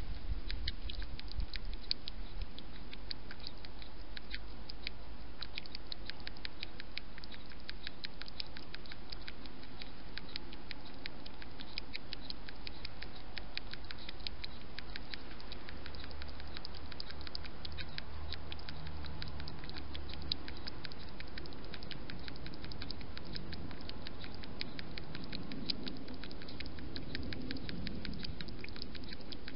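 European hedgehog feeding with its snout down in a bowl: a fast, steady run of small clicks from its mouth.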